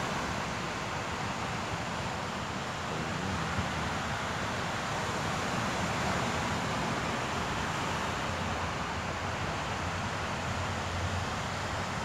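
Sea waves breaking and washing up a sandy beach: a steady, even rush, with wind noise on the microphone.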